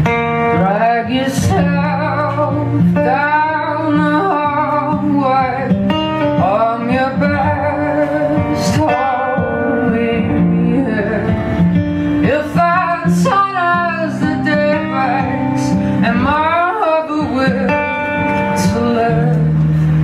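Live song performance: a woman singing lead into a microphone over strummed acoustic guitar, with the band playing along.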